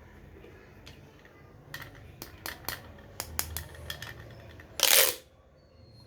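Corrugated plastic pop tube being stretched and squeezed: a scatter of sharp clicks as its ridges snap in and out, then one loud, short rush of crunchy noise about five seconds in.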